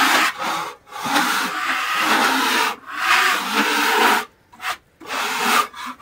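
A hand scraper dragged across the face of a freshly sawn hard maple slab, clearing sawdust off the wood in several long scraping strokes with short pauses between them.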